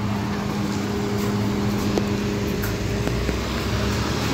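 Dnipro-T203 trolleybus giving off a steady electrical hum: one even low tone with its overtone over a low rumble.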